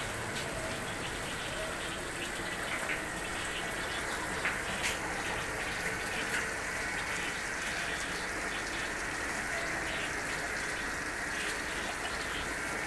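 Steady rush and splash of water circulating through saltwater aquarium tanks, with a few faint clicks.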